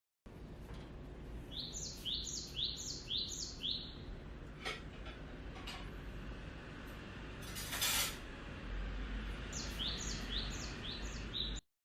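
A bird chirping in two quick runs of about five high chirps each, one early and one near the end, over a low steady hum. A few faint clicks and a brief noisy burst come in between.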